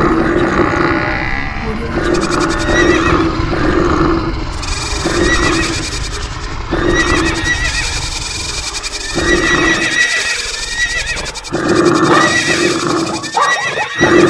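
Animal stampede sound effects: a dense low rumble of running hooves with animal calls recurring every second or two over it, among them horse whinnies. The rumble thins out for a moment a little past the middle, then comes back.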